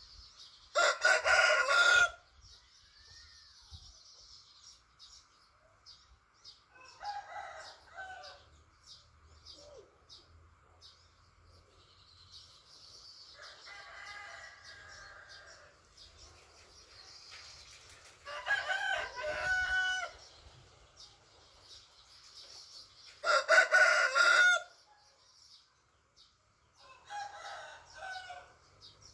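Roosters crowing: three loud crows, one about a second in and two more about two-thirds of the way through, with fainter crows between them. Chickens cluck and small birds chirp faintly in the background.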